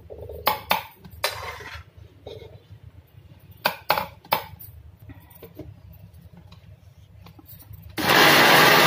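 Steel ladle clinking and scraping against the steel kadhai and mixer jar, a handful of sharp knocks in the first few seconds. About eight seconds in, a Havells mixer grinder starts suddenly and runs loud and steady, grinding cooled tomato-onion masala into a paste.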